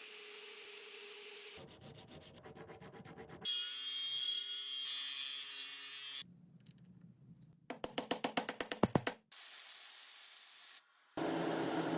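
Workshop restoration sounds in short clips that cut abruptly every one to three seconds: quick abrasive rubbing strokes, a whirring machine, a rapid run of sharp strikes, and a hiss.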